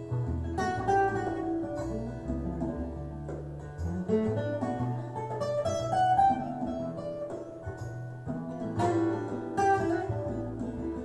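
Music played back through loudspeakers: an instrumental passage of a song, led by plucked guitar over a bass line.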